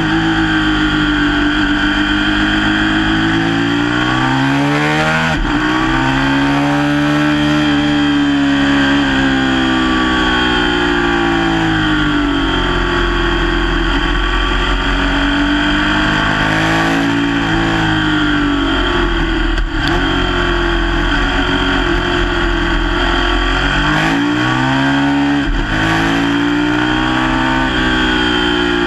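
Sport motorcycle engine heard from on board during a track lap, revving up through the gears and dropping sharply on braking and downshifts about three times.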